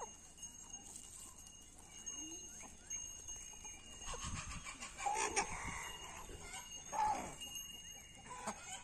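Farmyard animals calling: a cluster of calls from about four to five and a half seconds in, and one short pitched call about seven seconds in, over faint rural background.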